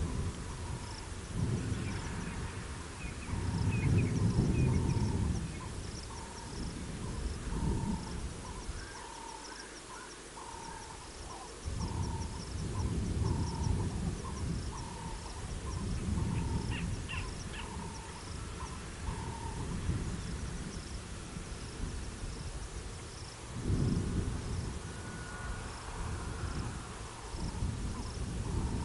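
Gusts of wind rumbling on an outdoor microphone, over a faint high insect chirp repeating all through and a lower call repeating about once a second that stops about two-thirds of the way in; a few short bird chirps.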